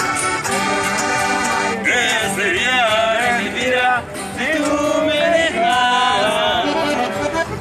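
Live norteño music from a street band of accordion, guitar and tuba. From about two seconds in, a voice sings over it, its pitch wavering up and down.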